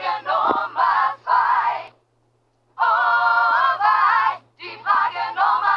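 A singing voice in short phrases of quick syllables, with a brief gap of silence about two seconds in, followed by a longer held phrase and more short syllables.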